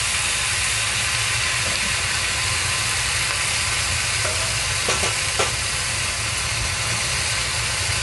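Chicken pieces and vegetables sizzling steadily in a hot cast iron wok, over a low steady hum. There are a couple of light clicks about five seconds in.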